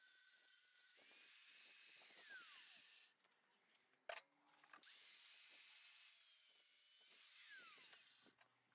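Grinder grinding steel in two passes of about three seconds each, its pitch sliding downward near the end of each pass, with a single knock in the pause between them.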